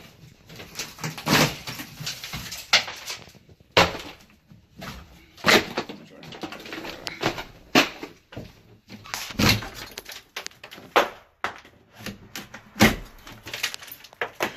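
Irregular knocks and bangs from renovation hand work, roughly a dozen sharp hits spread unevenly, with short scraping sounds between them.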